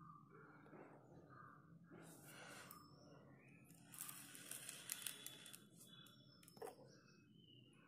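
Faint rustling and scraping of cardboard matchboxes being handled on a tabletop, with a small click near the end.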